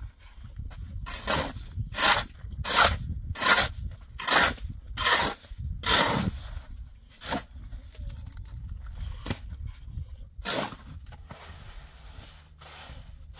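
Steel shovel scraping and turning wet cement mix on the ground, a quick series of about seven strokes under a second apart, then three more spaced out. Near the end, quieter scraping as freshly laid cement is smoothed.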